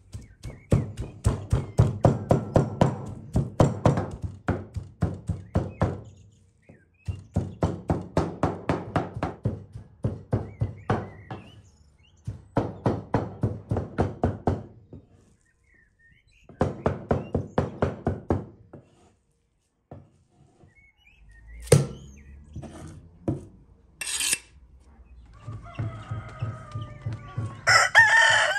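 Cleaver chopping beef on a round wooden chopping board: rapid, even strokes about four a second, in four runs with short pauses, mincing the meat by hand. A few single knocks follow, then a rooster crows near the end.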